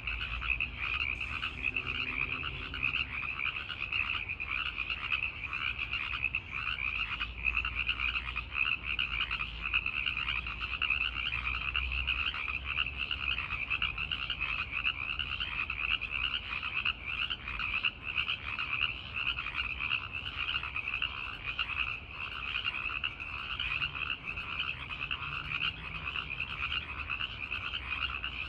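A dense chorus of male tree frogs calling, many rapid pulsing trills overlapping into a steady, unbroken din: breeding-season advertisement calls to females.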